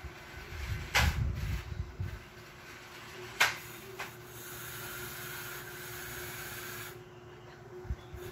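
A comb and fingers working through thick hair, with rubbing and rustling, two sharp clicks (about a second in and again a little past three seconds), and a steady hiss for a couple of seconds in the second half.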